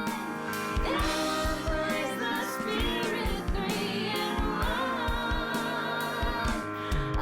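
A worship song: a singing voice over sustained instruments and a steady drum beat.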